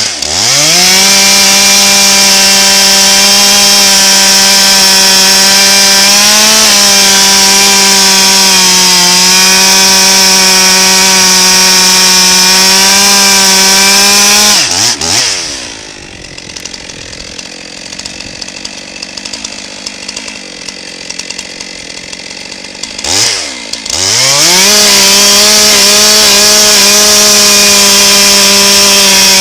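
Stihl two-stroke chainsaw running at full throttle and cutting red oak on a freshly sharpened chain, with a steady high engine note. About halfway through it drops back to idle for several seconds, then revs up again and goes back to cutting.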